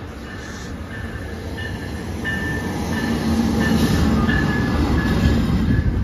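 NJ Transit electric train with Comet coaches pulling into the station and passing close by. It rumbles louder from about three seconds in, with a low hum, and short high-pitched squeals come and go throughout.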